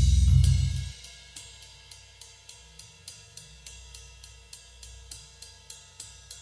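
Isolated bass guitar and drum kit tracks of a heavy metal song: a loud low bass note cuts off about a second in, leaving a quiet, steady hi-hat tick keeping time, roughly three strokes a second.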